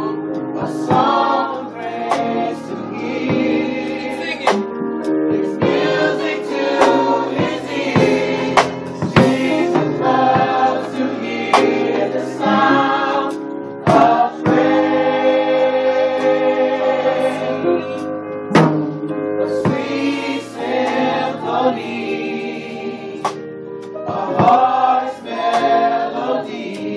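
Gospel choir singing a song in harmony, with long held notes, and sharp percussive hits through it.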